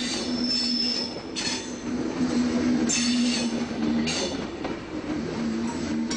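A train running on rails, with high wheel squeal and noisy surges every second or so over a steady low tone.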